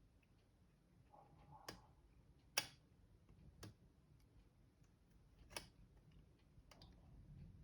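A few sharp clicks and taps of small tools or parts being handled during laptop repair work: four short clicks spread a second or two apart, over quiet room tone.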